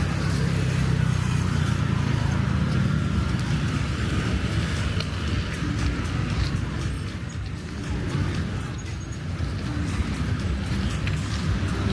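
Road traffic: motor vehicle engines running steadily as they pass, one engine's hum loudest over the first few seconds and then easing.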